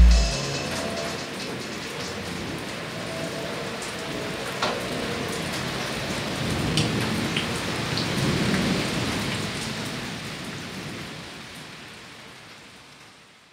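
Rain falling as a steady hiss with a few sharp drops, and a low rumble of thunder swelling in the middle. It all fades out near the end.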